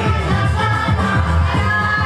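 DJ-played dance music with a sung vocal over a steady, repeating bass beat.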